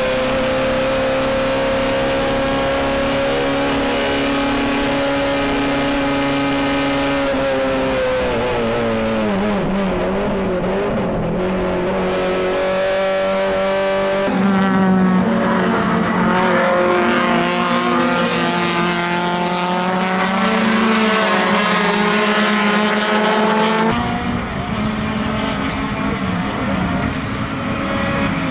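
Engine of a 1600 cc touring race car heard from inside the cockpit, running hard at high revs. The revs hold steady, drop about eight seconds in as the car slows, then climb again; the tone changes abruptly twice later on.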